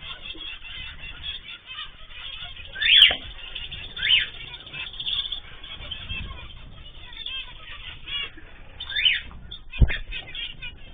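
Cage birds (cockatiels, canaries and zebra finches) chirping and calling together, with wing flapping and a few louder calls. There is a sharp knock near the end.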